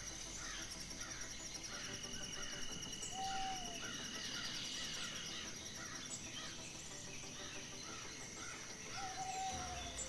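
Field ambience of insects and birds: a steady high insect trill, a regular run of short repeated chirps, and a brief whistled call about three seconds in and again near the end.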